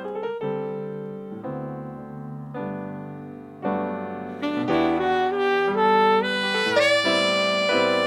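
Jazz ballad played on piano and saxophone. The piano plays chords alone at first, and the saxophone comes in about halfway through with a sustained melody over the piano.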